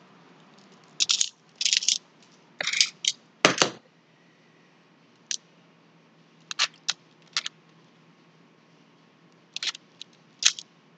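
Plastic tiles of a 15 sliding puzzle clicking and clattering in short, irregular clusters, with a firmer knock about three and a half seconds in.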